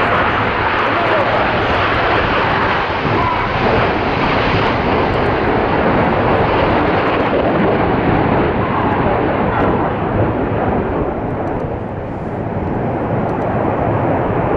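Red Arrows' BAE Hawk jets flying a display manoeuvre close by. Loud, steady jet engine noise loses its high end and dips a little from about eleven seconds in as the jets draw away.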